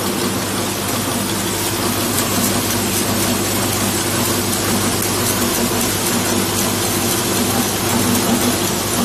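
Screw and washer assembly machine running steadily: a constant hum from its vibratory bowl feeders over a dense, fine rattle of small metal parts.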